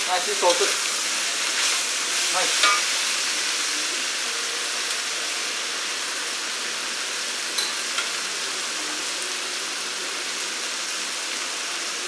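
Korean potato glass noodles and vegetables sizzling steadily in a wok, with a spatula scraping and stirring through them for the first few seconds, then the sizzle going on alone.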